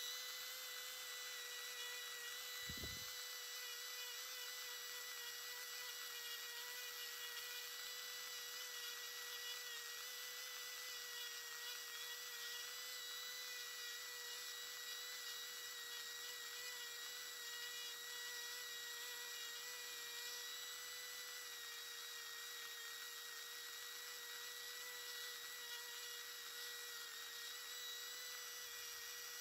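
Handheld rotary carving tool fitted with a fine diamond burr, running at steady speed with a high, even whine as it smooths the wood of a pine knot. A single low knock comes about three seconds in.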